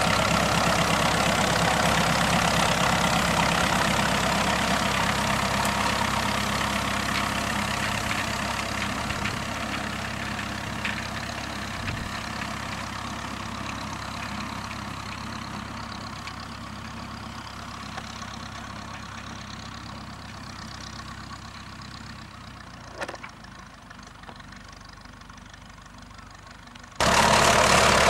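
Ferguson TEF-20's four-cylinder diesel engine running steadily as the tractor pulls a springtine grass harrow, fading gradually as it moves away. There is a single brief knock about 23 seconds in, and the engine is loud and close again in the last second.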